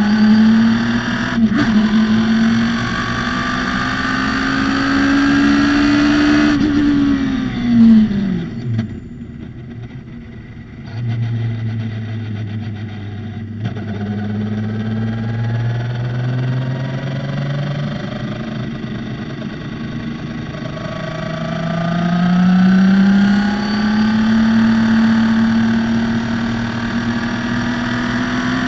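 Radical SR3 race car's engine pulling hard with its note climbing in pitch, then dropping sharply about six seconds in. After a quieter spell it holds a low steady note, then climbs in pitch again through the last third.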